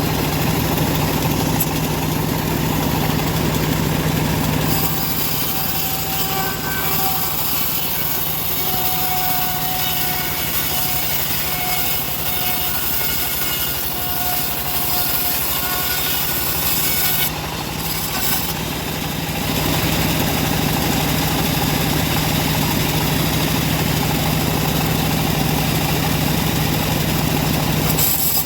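Bandsaw running with a steady motor hum throughout. From about five seconds in to about seventeen seconds its blade cuts through wood, adding a hiss and a thin whine before the machine runs unloaded again.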